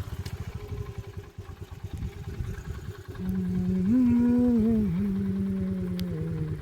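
A vehicle engine running steadily. From about halfway through, a long held tone wavers up and down in pitch over it for about three seconds.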